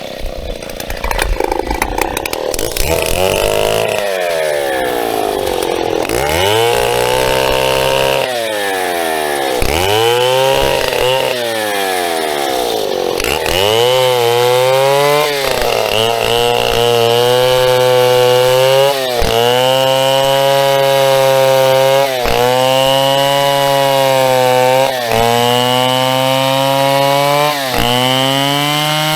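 Large two-stroke chainsaw cutting into a birch stem, its engine note sagging under load and picking back up again and again, with short drops in speed every few seconds through the second half.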